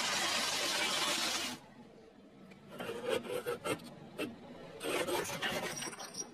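Car tyre rolling over a heap of prawn crackers, a loud, dense crunching that stops about a second and a half in. About a second later comes a run of sharp crackles and snaps in two bursts.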